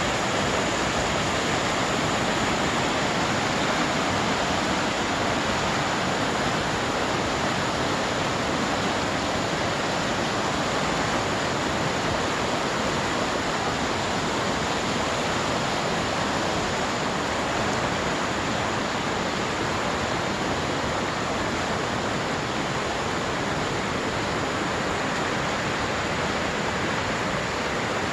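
Steady rushing of flowing water, an even unbroken noise.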